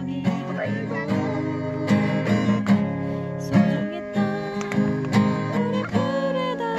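A man singing a Korean ballad while strumming a steel-string acoustic guitar in a steady rhythm.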